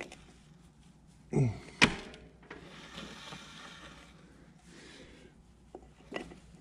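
Hands working a motorcycle drive chain: a sharp click about two seconds in, then rustling and a few lighter clicks near the end.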